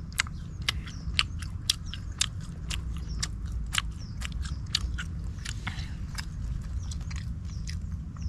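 Close crunchy chewing of grilled small birds eaten bones and all: a run of sharp, irregular cracks, two or three a second, over a steady low rumble.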